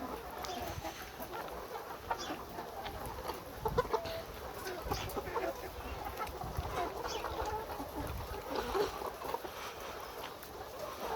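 A large flock of caged laying hens clucking and calling, many birds at once in a dense, continuous chatter. A couple of low thumps stand out about four seconds in.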